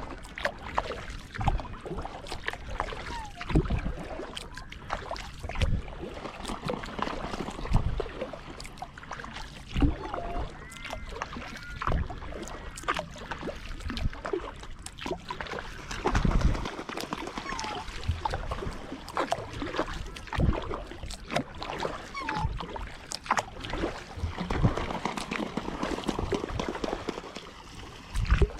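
Kayak paddle strokes in the water, one splash about every two seconds, over continuous water sloshing.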